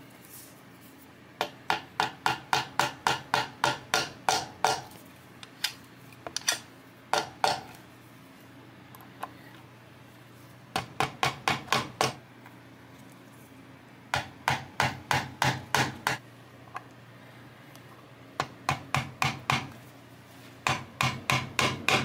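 Screwdriver driving the pickguard screws into an electric guitar body: runs of sharp clicks, about three to four a second, in several short bursts with pauses between.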